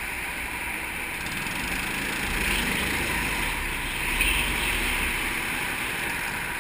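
Go-kart engines running as the onboard kart pulls away from the pit line onto the track and picks up speed, a noisy drone that grows louder a couple of seconds in.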